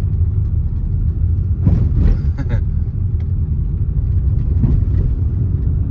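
Steady low rumble of road and engine noise inside the cabin of a Hyundai ix35 SUV while it drives.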